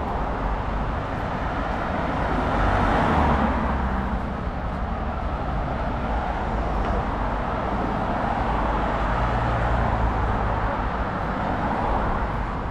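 Road traffic noise: a steady hum of passing cars with a low rumble, swelling as a vehicle passes about three seconds in.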